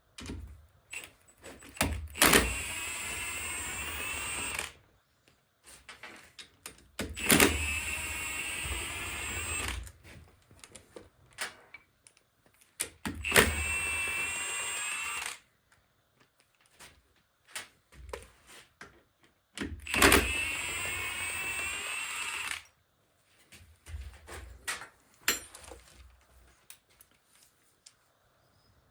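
A power tool run in four bursts of about two and a half seconds each, each starting with a sharp knock, with scattered tool clicks and knocks between the bursts.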